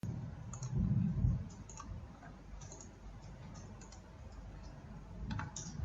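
A few faint, scattered clicks, with a low muffled bump about a second in.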